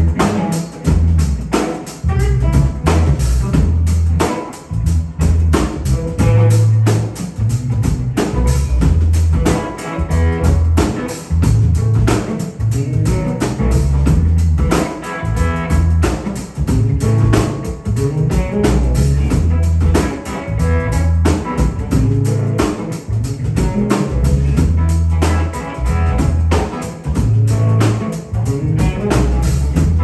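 Live rock trio playing an instrumental passage with no singing: electric guitar, electric bass guitar and drum kit, a bass line moving through changing notes under steady drum hits.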